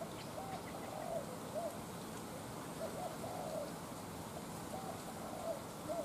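Spotted dove cooing faintly: several short, soft coo phrases with pauses between them.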